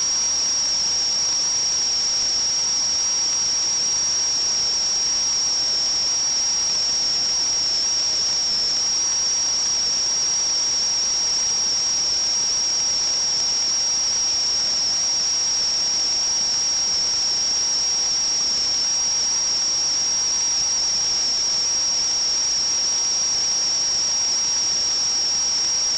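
A steady, high-pitched whistle over an even hiss, unchanging throughout.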